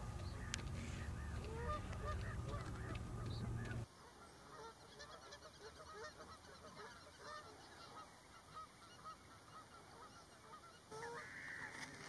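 A flock of birds calling, many short calls overlapping without pause. For the first four seconds a steady low rumble lies under them; it cuts off suddenly and the calls carry on alone.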